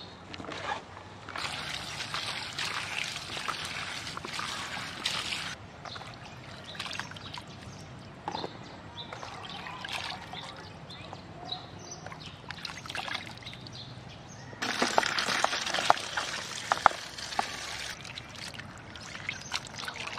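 Hands swishing and squeezing cut cauliflower, carrot and cucumber pieces in a plastic basin of water, rinsing off the salt: sloshing and trickling water with small knocks of the vegetable pieces. The water pours louder twice for a few seconds.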